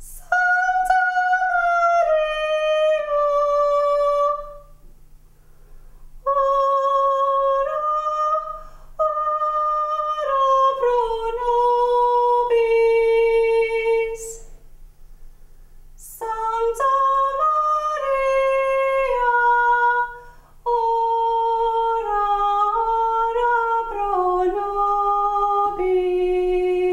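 A woman's solo voice sings a slow melody in long held notes that step down in pitch, in phrases with short pauses between them, over a faint low hum.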